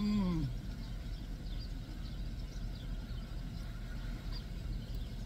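A short hummed "mmm" of enjoyment with a closed mouth while chewing, rising then falling in pitch, right at the start. Underneath, the steady low rumble of the idling car, with faint high chirps of birds outside.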